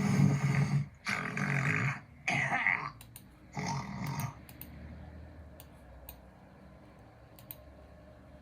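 A person snoring loudly: four rough, snorting snores of about a second each follow one another in quick succession, then it goes quiet apart from a few faint clicks.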